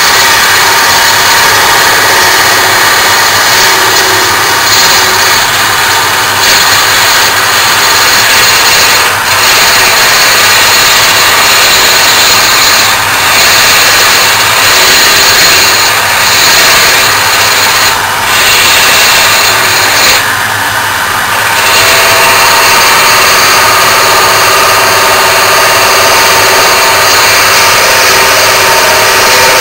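JET wood lathe running with a spindle gouge cutting a small wooden handle, a loud steady whir and hiss of motor and cutting.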